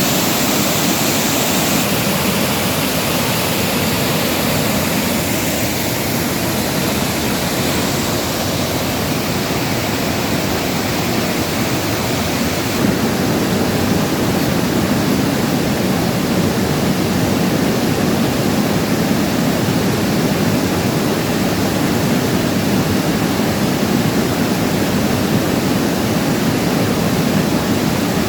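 Stream water rushing steadily over rocks and spilling into rock pools: an even, full rush with no change.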